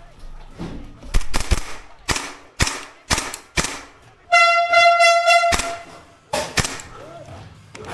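Airsoft gas blowback guns firing single shots, about seven sharp cracks at irregular spacing. A steady horn-like tone sounds for a little over a second midway through.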